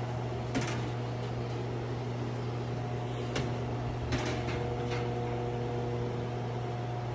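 Steady electric motor hum, like a ventilation fan running, with a faint higher whine coming in about three seconds in. A few sharp clicks sound over it, one near the start and two a little past the middle.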